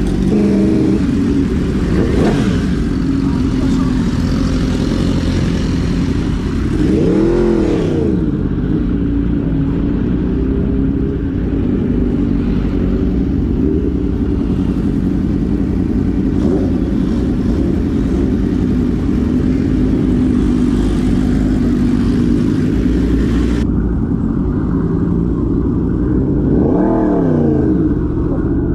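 Sport bike engine running under the rider, with the revs swelling up and falling back briefly about seven seconds in and again near the end.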